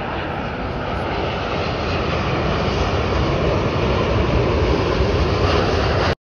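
Jet engines of a Boeing 787 airliner on low final approach with its landing gear down: a steady rushing roar that grows louder as the aircraft nears, then cuts off abruptly near the end.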